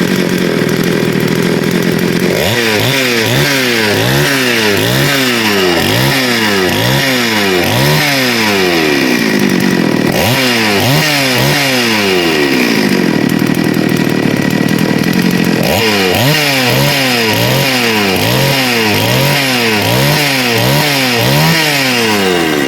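Two-stroke chainsaw engine idling, then revved in quick repeated blips of the throttle, each a short rise and fall in pitch. The blipping comes in three runs, about two seconds in, around ten seconds in and near sixteen seconds in, with steady idle between them. The saw is being test-run after troubleshooting and runs cleanly.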